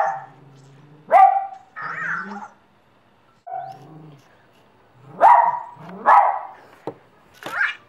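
Puppy barking and yipping in about six short bursts, with a couple of sharp taps near the end.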